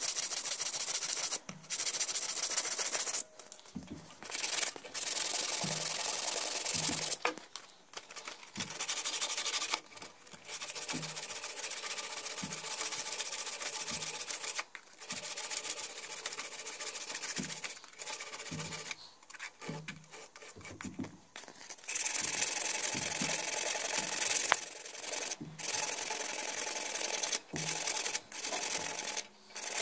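A slender bone needle blank being sanded by hand against yellow sandpaper, a dry scraping in stretches of a few seconds broken by short pauses, as the needle is shaped.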